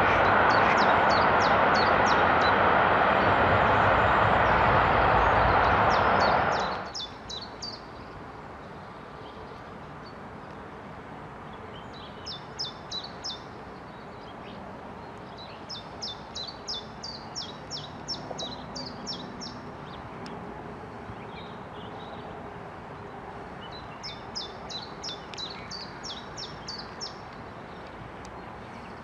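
A loud steady rushing noise that cuts off abruptly about seven seconds in, followed by songbirds singing in repeated short, rapid trilled phrases over a quieter steady background.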